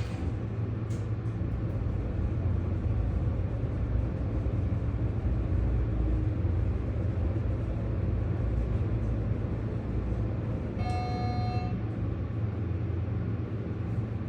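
Schindler hydraulic elevator car descending, a steady low hum. Near the end a single electronic tone sounds for under a second.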